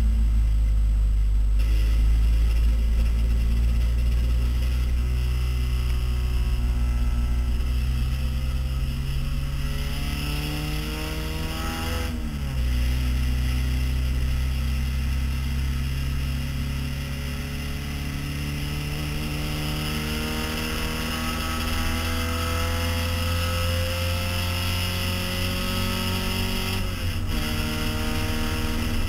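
Lada race car's engine heard from inside the stripped cabin, pulling hard under acceleration. Its pitch climbs steadily, drops sharply at a gearchange about twelve seconds in, climbs again through a long stretch, and drops once more near the end.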